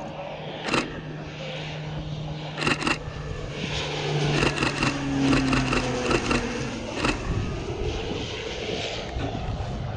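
Low-flying aircraft passing, a steady engine drone whose tone falls slightly near the middle, with sharp clicks and wind noise on top.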